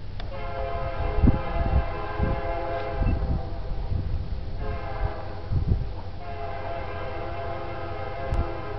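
Air horn of an approaching EMD SD70MAC locomotive, BNSF 9850, blowing three blasts: a long one of about three seconds, a shorter one after a pause, and a third that starts past six seconds and holds on. Low rumbling thumps sound underneath.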